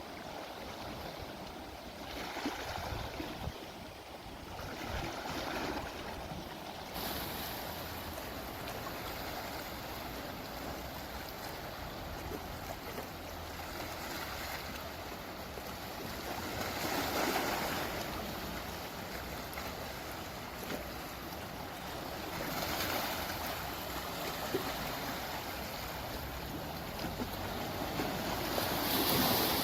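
Sea waves washing onto the shore, with wind blowing. The surf swells and eases every several seconds, loudest about two-thirds of the way through and again near the end.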